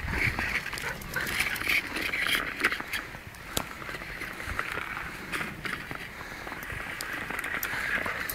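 English Springer Spaniel making high, wavering whining sounds, strongest in the first couple of seconds and again near the end, among scattered small clicks and crunches.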